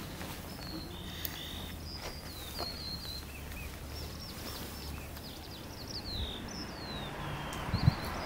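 Songbirds chirping with many quick falling whistles, over a low steady hum from a distant approaching diesel locomotive.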